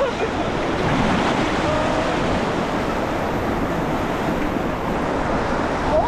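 Fast mountain river rushing over rocks around an inflatable raft: a steady, even rush of whitewater, with some wind buffeting the microphone.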